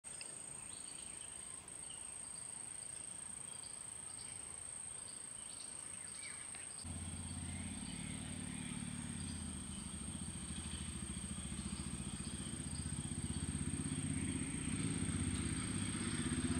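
Outdoor ambience: a steady high-pitched whine with short bird-like chirps. About seven seconds in, a low engine rumble starts suddenly and grows louder.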